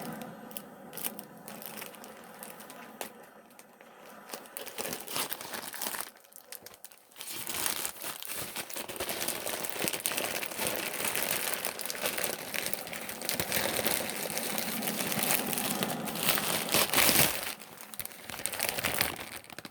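Plastic shipping bag and packaging crinkling and rustling as a parcel is opened and unpacked by hand. Soft, scattered rustles at first, then dense, continuous crinkling from about seven seconds in, loudest near the end.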